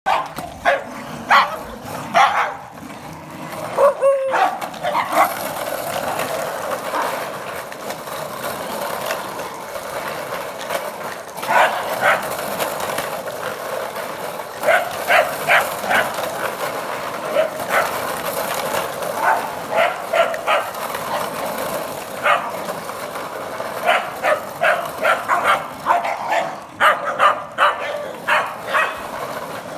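A pack of small terriers yapping in short, high barks, often several in quick succession, over a steady rolling noise from a wheeled plastic trolley being dragged round on concrete.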